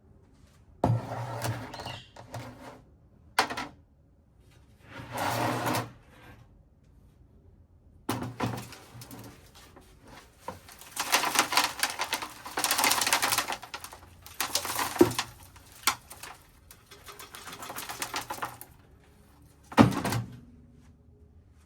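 Irregular bursts of scraping and rubbing with several sharp knocks and clicks in between, like hands working on a hard object.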